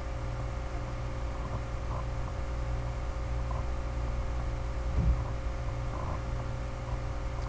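Steady low electrical hum with background hiss, and one soft low thump about five seconds in.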